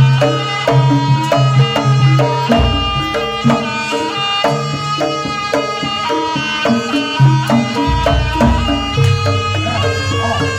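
Live Javanese jaranan accompaniment music: hand drums and struck metal percussion playing a steady, rapid rhythm of ringing pitched notes, with deep drum or gong strokes coming and going underneath.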